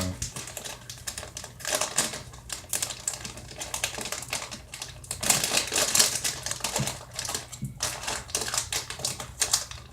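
Plastic snack bag of Combos pretzels crinkling and crackling as it is opened and handled, in irregular bursts that are busiest around five to six seconds in.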